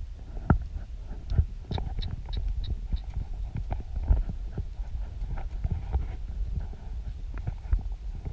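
Hoofbeats of a ridden horse on a dirt track, heard as irregular thuds over a steady low rumble, with a quick run of sharper clicks about two seconds in.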